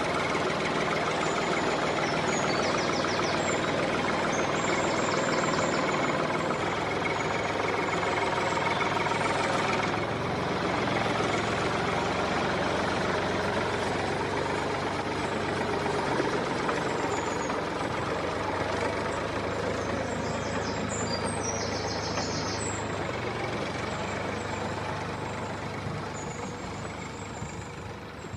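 Small electric motor and gears of a homemade miniature tractor running steadily, a continuous mechanical whir that fades a little near the end.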